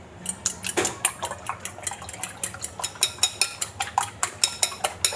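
A spoon stirring briskly in a dish, clinking against its side about five times a second, mixing in the seasoning.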